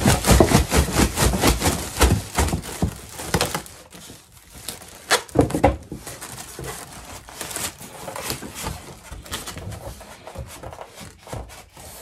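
Cardboard box and packing rustling, scraping and knocking as a mid-tower PC case stuck inside is tugged at. The handling is busy for the first few seconds, with a few louder knocks a little later, then settles into quieter scattered rustles.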